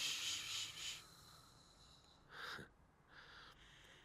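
A sleeping woman snoring: a long breathy hiss, then a short snort about two and a half seconds in, and a fainter breath after it.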